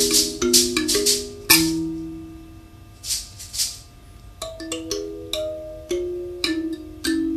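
Setinkane thumb piano played in a repeating melody: plucked metal tines, each note ringing and dying away, with a rattle sounding along. The playing breaks off about a second and a half in, two rattles shake near the three-second mark, and the plucking picks up again about four and a half seconds in.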